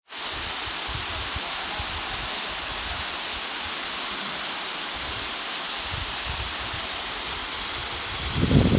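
Waterfall: a steady, even rush of falling water. Under it, irregular low buffeting, strongest near the end, like wind on the microphone.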